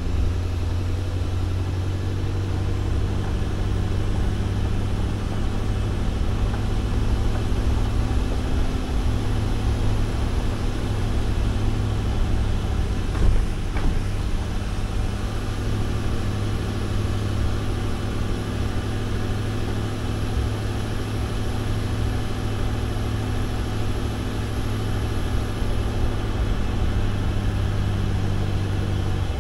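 Pickup truck driving on a gravel road: steady engine hum and tyre noise, with a single short knock about thirteen seconds in.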